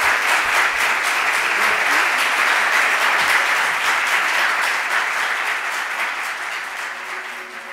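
Audience applauding at the close of a lecture, a dense steady clapping that slowly fades toward the end.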